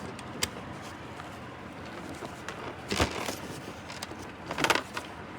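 Small clicks and rattles of the plastic number wheels and parts of a luggage combination lock being handled and fitted back into the lock body: a single tick early, then a short cluster of clicks about three seconds in and another near the end.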